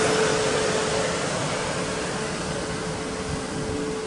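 South Western Railway Desiro electric multiple unit running past and away along the platform: steady rumble of wheels on rails with a steady, even whine from its traction equipment, slowly getting quieter.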